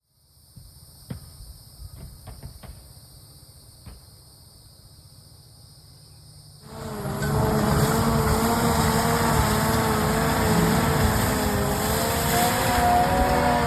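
A forestry mulching machine's engine runs low with a few sharp clicks and knocks. About six and a half seconds in it jumps to full power, a loud steady run with a wavering whine over it.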